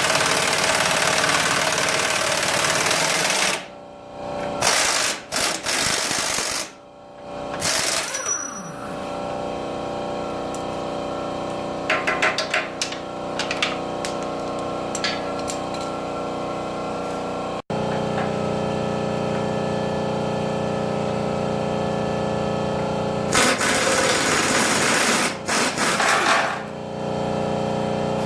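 Pneumatic impact wrench hammering on the front-suspension bolts of a 1969 Ford F250 frame, in several bursts with short pauses, as the suspension is unbolted.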